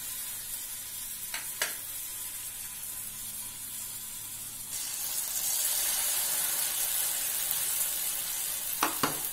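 Batter-coated egg pieces deep-frying in hot oil in a kadai, a steady sizzle that grows louder about halfway through. A few light clicks come early and near the end.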